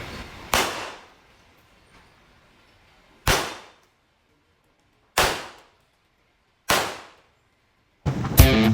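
Four sharp metallic clangs, one at a time and each fading out within about half a second, with dead silence between them. A guitar music track starts near the end.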